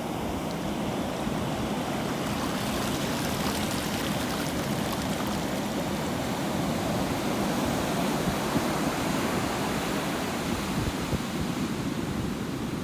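Ocean waves washing on a shore, a continuous rush of surf without distinct breaks.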